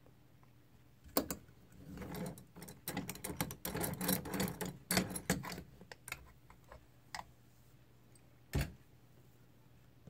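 Small metal clicks and rattles as a brass oval lock cylinder is worked loose and lifted out of a metal vise, with one sharp knock near the end.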